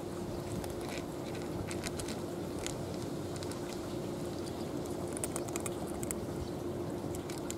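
Two cats crunching dry kibble: scattered short, sharp crackles over a steady low background rumble with a constant hum.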